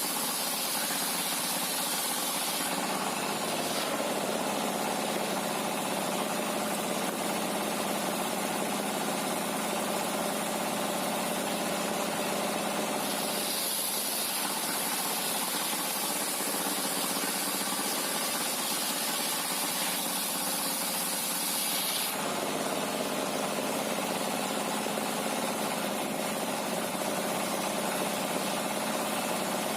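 Sawmill machinery running with a steady engine drone. A high whine drops away about three seconds in, comes back about thirteen seconds in, and drops away again about twenty-two seconds in.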